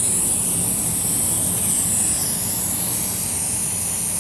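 Steady hiss of compressed air escaping from an air hose, high-pitched, with a low rumble underneath.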